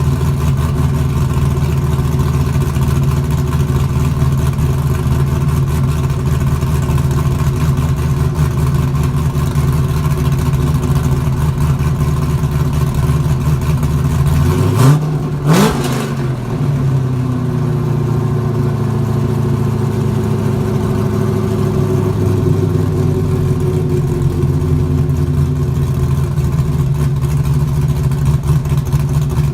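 LS1 V8 in an RX-7, running through an exhaust without its rear mufflers: a lumpy idle, then one quick rev blip about halfway through that falls back to a smoother, slowly settling idle.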